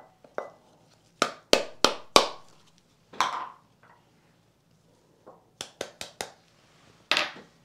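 Sharp taps and clinks of small containers knocked against a Pyrex clear glass mixing bowl to shake out powdered ingredients, several in quick succession, with a couple of softer swishes of powder pouring in.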